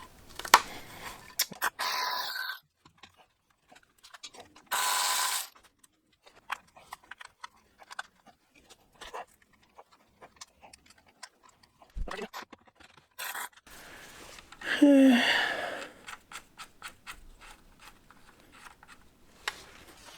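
Shop work: scattered clicks and clinks of tools and parts on metal, with a few short noisy bursts and a single low thump about twelve seconds in.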